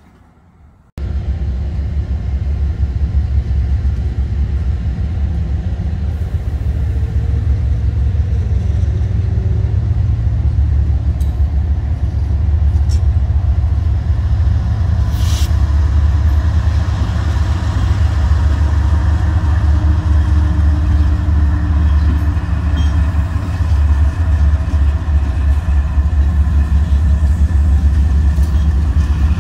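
Florida East Coast Railway diesel locomotives running close by, a loud, steady low rumble that cuts in suddenly about a second in.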